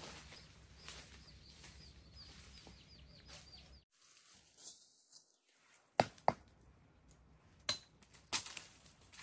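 Footsteps and rustling through dry bamboo leaves and undergrowth, with a bird's quick run of repeated high chirps in the first few seconds. Later come several sharp knocks or snaps of wood, the loudest about six seconds in.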